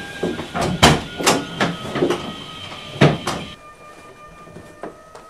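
Several sharp knocks over a background music track during the first three seconds, then the music cuts off suddenly about three and a half seconds in, leaving quieter room sound.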